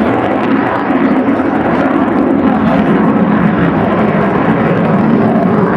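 Jet noise of a Grumman F-14 Tomcat flying past, a loud, steady rushing noise.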